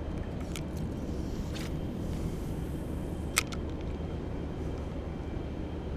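Steady low rumble on the microphone, with a few small clicks from a spinning reel being handled, the sharpest about three and a half seconds in.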